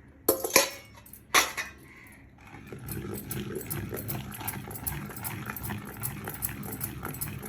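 Two sharp utensil knocks, then continuous scraping and churning of a spoon stirring salt into cooked toor dal and drumstick leaves in a pot.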